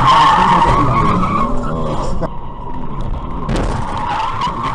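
Car tyres screeching in a skid, with a vehicle's engine underneath. The squeal eases off a little after two seconds in and starts again suddenly about three and a half seconds in.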